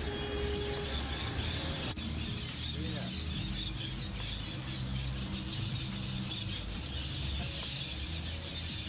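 Outdoor park ambience: people's voices murmuring indistinctly in the background over a steady low rumble, with high bird chirping throughout. The sound breaks briefly about two seconds in.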